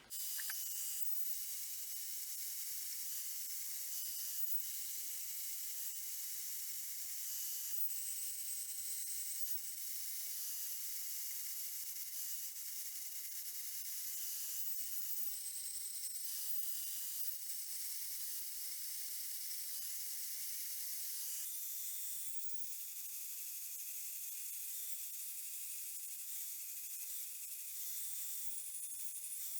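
Bandsaw cutting a short bar of 3/4 inch mild steel square stock: a steady high hiss with faint thin whines that come and go, changing slightly about two-thirds of the way through.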